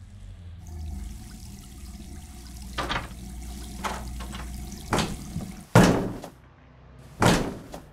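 Shower water running with a steady hiss, broken by several sharp, loud bangs; the loudest comes near six seconds in.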